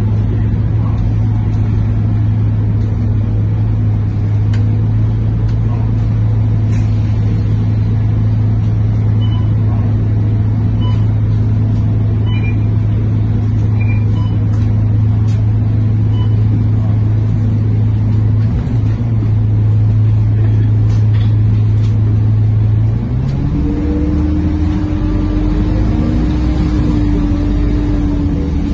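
Scania K230UB bus's diesel engine and ZF automatic gearbox heard from inside the cabin while under way, a loud steady drone. About 23 seconds in, the pitch steps up to a higher steady whine from the drivetrain.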